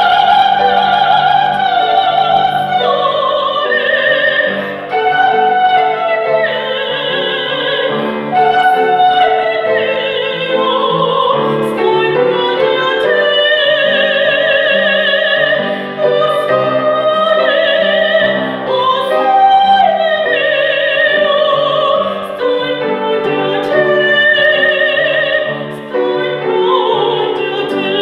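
A woman singing in an operatic style into a microphone, holding long notes with wide vibrato, over instrumental accompaniment with piano.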